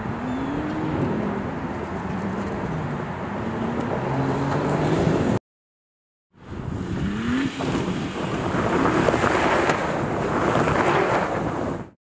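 Ram 1500 RHO pickup's 3.0-litre twin-turbo Hurricane straight-six accelerating over dirt, its pitch rising and dropping with gear changes, over tyre and gravel noise. The sound cuts out for about a second midway. Then trucks go by with engine and gravel noise, loudest near the end.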